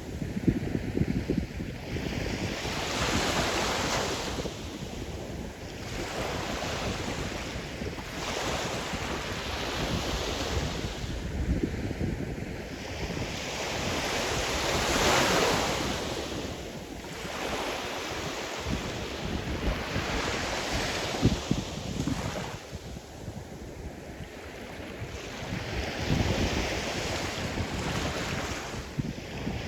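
Sea surf: waves breaking and washing ashore, swelling and fading every few seconds, the largest about halfway through, with a low gusty rumble of wind on the microphone.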